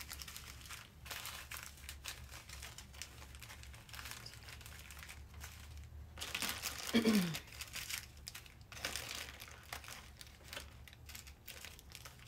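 Small plastic zip bags of diamond painting drills crinkling as they are handled and sorted, with the beads shifting inside in short irregular rustles. A brief falling pitched sound stands out about seven seconds in.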